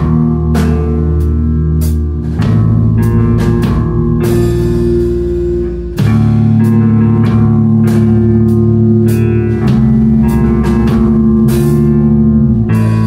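A rock band playing loud live music: guitars, bass and a drum kit with cymbal hits, no singing. About six seconds in the band drops back briefly, then comes in fuller.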